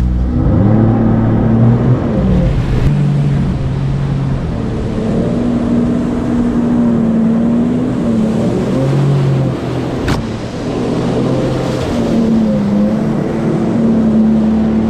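Jet ski engine running under way, its pitch rising, holding and easing off several times as the throttle changes. There is one sharp click about ten seconds in.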